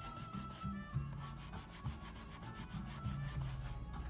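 Stiff paintbrush scrubbing quickly back and forth in dry-brush strokes, its bristles rasping on a painted wooden board, several strokes a second, stopping near the end.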